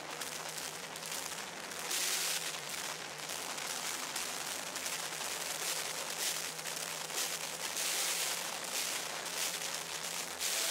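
A drum kit on a wheeled frame, dense clattering with crashing cymbals, very loud and noisy.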